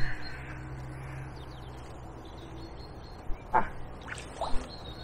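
A duck quacking two or three short times in the second half, over a steady low hum.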